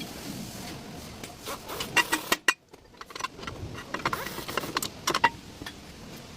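Irregular metallic clinks and taps, several ringing briefly, of tools and brake parts being handled during rear brake work.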